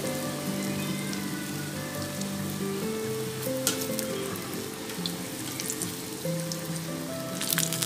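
Small balls of dosa batter deep-frying in hot oil in a kadai, with a steady sizzle. A wire-mesh skimmer turns them and makes a few sharp clicks, once midway and again near the end, over soft background music.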